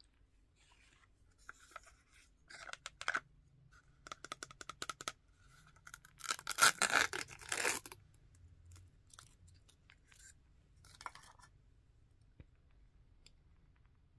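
Small paper wrapper around a miniature toy being torn and peeled open by hand: crinkling rustles, then a louder tear midway, and a short last crinkle a few seconds later.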